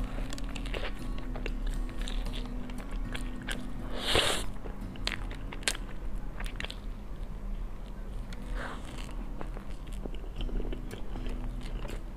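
Biting and chewing a cream puff close to a clip-on microphone: short mouth clicks and crackles of the pastry shell, loudest about four seconds in.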